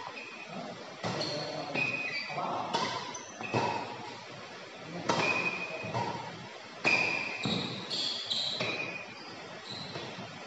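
Badminton rally in a sports hall: sharp racket strikes on the shuttlecock every second or two, with short high squeaks of shoes on the court floor between them.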